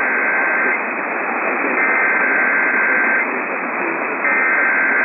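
Radio static hiss from a weak, narrow-band radio signal, with a chord of high steady tones that sounds for about a second and a half and then pauses, repeating about every two and a half seconds.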